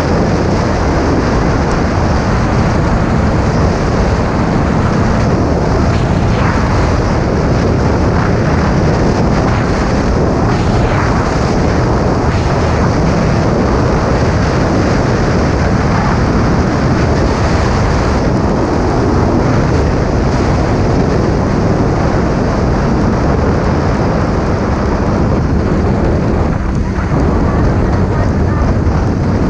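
Honda Supra GTR 150 Fi motorcycle running flat out in sixth gear at about 105 km/h: a loud, steady mix of the single-cylinder engine and rushing wind on the microphone. The bike slows toward 80 km/h near the end.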